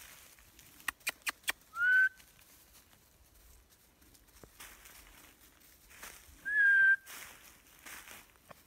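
Two short, loud whistled notes: the first, about two seconds in, rises and then holds; the second, about six and a half seconds in, dips slightly and then holds. A quick run of four sharp clicks comes just before the first note.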